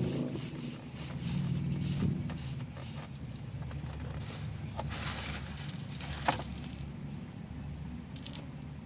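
Low rumble of a vehicle driving by, fading over the first couple of seconds and then lingering faintly, with a few small sharp clicks about five and six seconds in.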